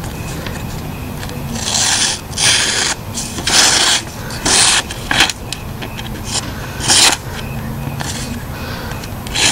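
Knife blade slicing through a sheet of printer paper, a paper-cutting sharpness test of a Blind Horse Knives Bushcrafter. It comes as about six short, hissing rasps, one per stroke, most of them close together in the first half.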